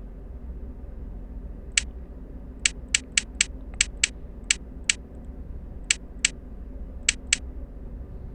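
About a dozen short, sharp clicks from a keno game as spots are picked one after another, many in quick pairs, over a steady low hum.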